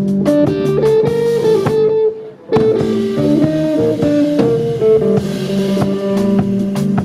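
A live band playing an instrumental passage: electric guitar notes ringing out over bass guitar and drum kit. The music drops out briefly about two seconds in, then the band comes straight back in.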